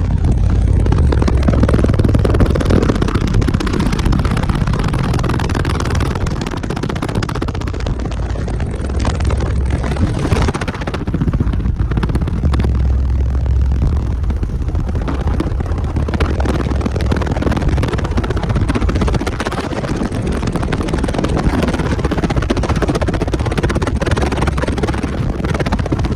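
A car audio system of twelve 15-inch subwoofers in a 6th-order bandpass enclosure playing deep bass at very high level, the low notes shifting every few seconds. The pressure is enough to push air hard through the cabin, and a dense rushing noise sits over the bass.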